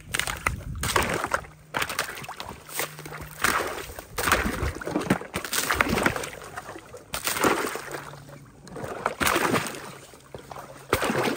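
Rubber boots splashing and sloshing through shallow muddy water, step after step, about one or two splashes a second.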